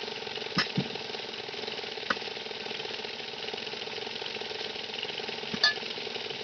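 An engine idling steadily, with a few sharp knocks from the tyre work, the loudest about five and a half seconds in.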